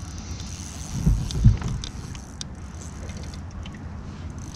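Spinning reel being cranked as a hooked fish is reeled in, its gears whirring, with a couple of low knocks about a second in.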